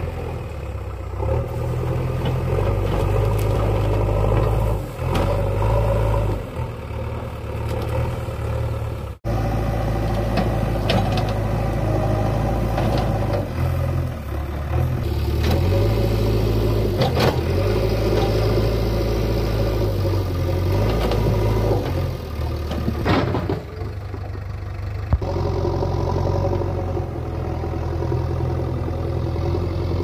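JCB 3DX backhoe loader's diesel engine running under load, rising and falling in pitch as the machine shoves and lifts a large uprooted dry tree. There are a few sharp knocks along the way.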